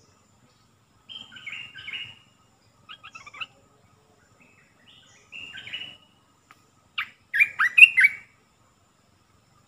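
Olive-winged bulbul singing: four short, bubbling phrases of whistled notes, the last, about seven seconds in, the loudest.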